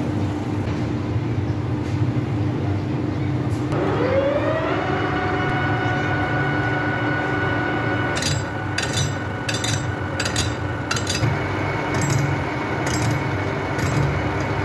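Metal lathe motor spinning up about four seconds in with a rising whine, then running steadily over a low hum. From about halfway, a boring bar cutting the bearing seat inside a steel truck wheel hub gives brief sharp scrapes, several times.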